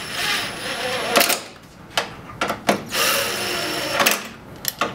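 Cordless drill driver running Torx 40 bolts into a UTV door hinge in two runs of about a second each, with several sharp clicks between and after the runs.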